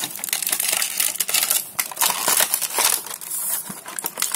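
Clear plastic packaging bag crinkling as hands handle it, with dense crackling and many small clicks of the plastic toy parts inside.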